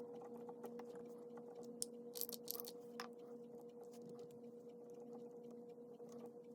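Faint scratching and tapping of a pen writing on paper, with a louder scratch about two seconds in. A steady hum runs underneath.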